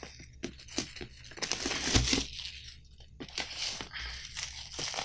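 Clear polythene wrapper on a paperback book crinkling and crackling as it is pulled off by hand, in irregular bursts that are densest about two seconds in, with a dull knock at that point.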